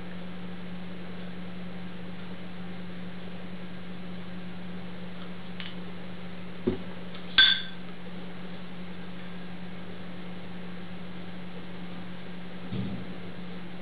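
A steady low hum, with two short knocks about seven seconds in; the second is the loudest, a ringing clink of small glass spice jars being handled. A fainter dull knock comes near the end.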